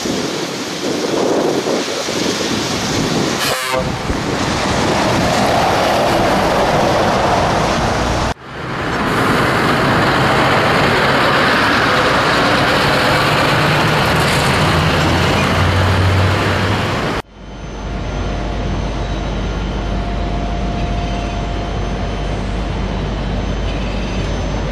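Scania V8 diesel trucks on the road: engine and road noise with a horn toot, broken by sudden changes about a third of the way in, in the middle and two-thirds of the way through.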